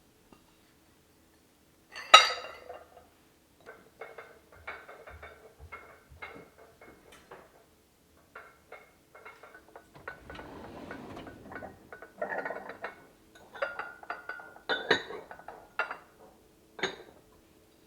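Dishes and glassware clinking as they are put away, with one loud ringing clink about two seconds in, then many lighter, irregular clinks and knocks.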